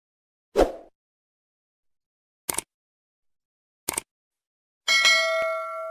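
Subscribe-button animation sound effects: a short thump, then two mouse-click sounds about a second and a half apart, then a notification-bell chime that rings on and fades.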